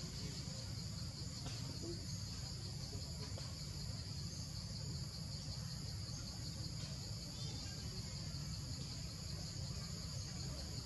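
Steady, high-pitched chorus of insects trilling, with a low rumble underneath.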